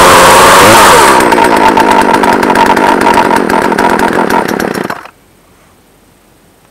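Poulan Pro 42cc two-stroke chainsaw, new and just started for the first time, running loud. Its sound turns choppier about a second in, then the engine is shut off suddenly about five seconds in.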